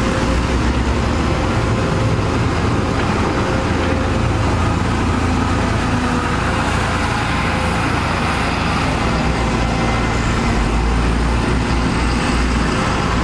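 Diesel engine of a Samsung wheeled excavator running steadily as it digs dirt, a loud continuous rumble.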